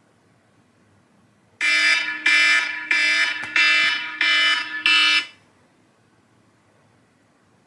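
Smartphone alarm ringing with a quirky, buzzy tone: six loud pulses of about half a second each, then it cuts off suddenly just past the middle as it is switched off.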